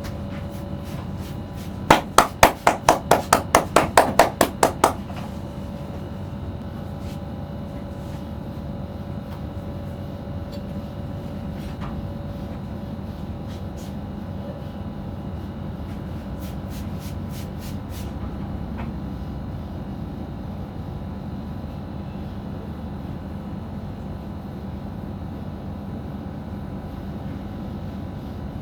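A quick run of about a dozen sharp, hollow percussive strikes of a head massage, roughly four a second for about three seconds, against a steady background hum.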